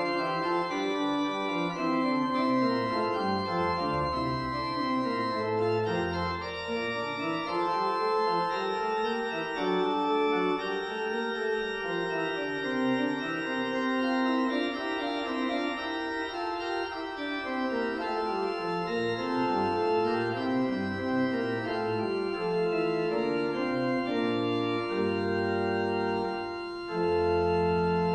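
Church organ playing sustained chords over a bass line that rises and falls. Just before the end it breaks off briefly and a louder, fuller chord comes in.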